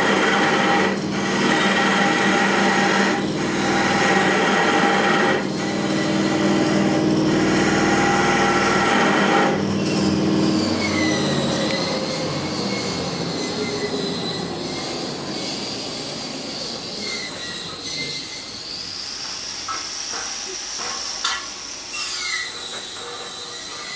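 VST 101 CNC wood-carving lathe running, a steady motor hum mixed with rasping, likely the cutter on the wood. About ten seconds in it turns quieter, leaving a high whine that wanders up and down in pitch.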